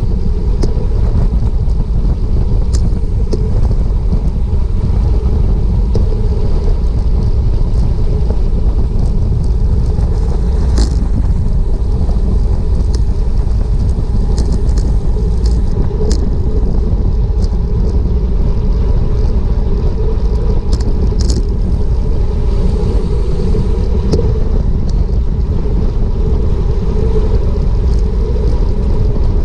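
Steady heavy wind rumble buffeting an action camera's microphone on a road bike riding at about 25 mph, with a few short sharp clicks scattered through it.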